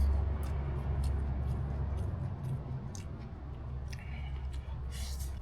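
A person chewing a mouthful of spicy stir-fried wild mushrooms, with small scattered clicks. A steady low rumble runs underneath.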